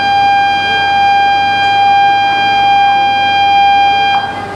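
Station platform departure bell: one loud, steady electronic tone that holds unchanged and then cuts off suddenly near the end.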